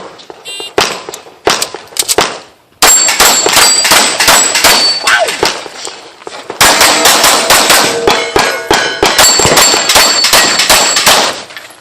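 Pistol fired rapidly at steel targets, each hit ringing the steel plates with a high ping. There are a few single shots at first, then two fast strings of fire with a brief lull about six seconds in.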